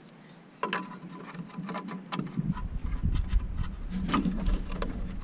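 Light clicks and rattles of an Earthway garden seeder being handled and set up with its seed plate, with a low rumble joining about two seconds in.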